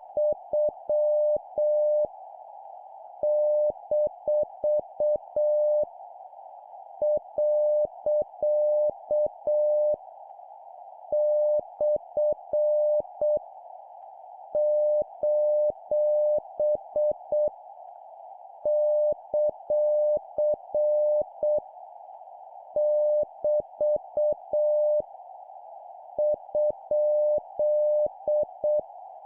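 Morse code (CW) practice tone near 600 Hz, keyed in dots and dashes at a slow 7 words per minute, sending punctuation marks. The characters come in short groups with pauses of about a second between them, over a steady, narrow band of hiss.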